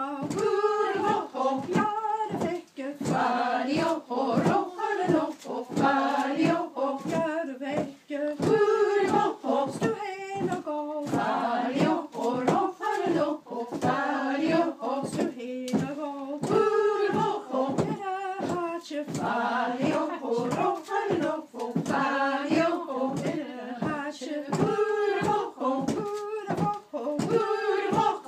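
A group of women singing a waulking song together while they beat a length of woollen cloth on a table, the cloth thudding in a steady rhythm that keeps time with the song.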